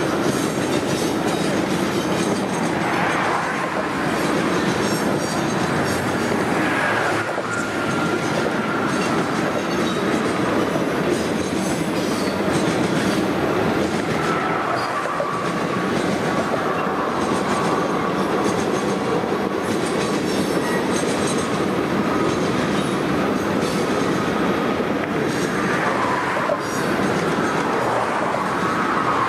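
Freight cars of a Norfolk Southern train rolling steadily past, steel wheels clicking over the rail joints. A faint high wheel squeal comes and goes, falling slightly in pitch.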